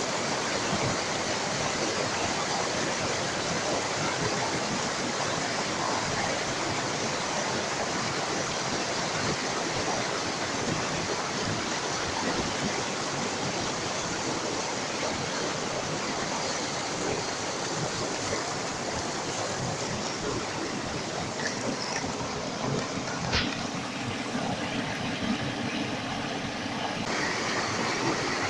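Rushing water of a rocky mountain stream tumbling over boulders: a steady, even rush. Near the end the rush briefly changes tone, with one sharp click.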